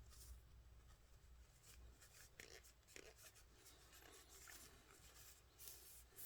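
Faint, intermittent rubbing and light scratching of a microfiber cloth wiping small disassembled knife parts.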